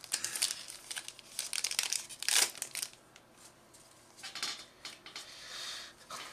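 Trading card booster pack's foil wrapper crinkling and being torn open. A run of crackles fills the first three seconds, sharpest about two and a half seconds in, followed by softer crinkling.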